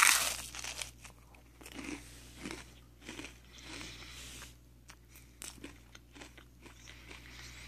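Someone biting into a crisp caramel corn rice cake: one loud crunch at the start, then crunchy chewing on and off.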